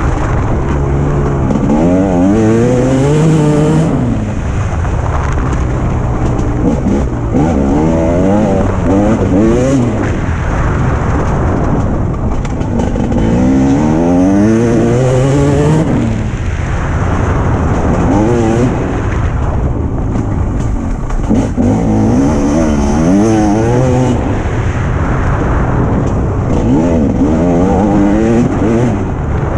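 Motocross bike engine being ridden hard round a dirt track, heard from a camera mounted on the bike: the note climbs steeply and drops back again every couple of seconds as the rider accelerates, shifts and rolls off, over a constant low rumble.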